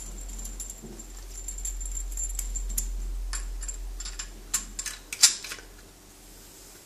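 Metallic clicks and rattles of coaxial cable connectors being handled and fitted, with a cluster of sharp clicks about five seconds in, over a low hum.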